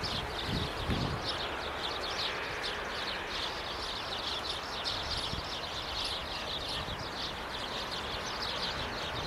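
Birds chirping rapidly, several short high chirps a second without pause, over a steady background hiss.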